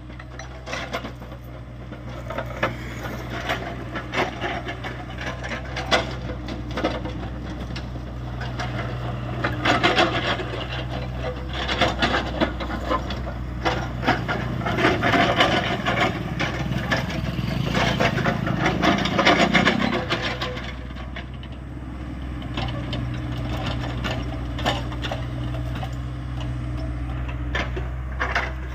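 Hyundai 85A excavator's diesel engine running steadily under load, with irregular scraping, grinding and knocking of rock against steel that grows heavier in the middle and eases off near the end.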